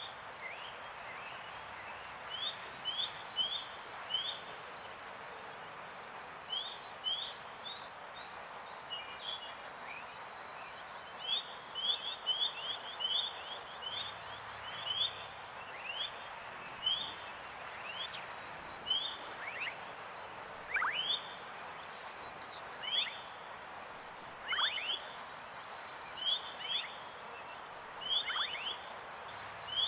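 A steady, high, rapidly pulsing trill that sounds like insects runs throughout. Over it come short chirps repeated every half second or so, and in the second half a few falling whistles.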